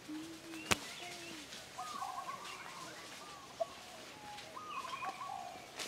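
Birds calling with short repeated phrases at several pitches, and a single sharp click less than a second in.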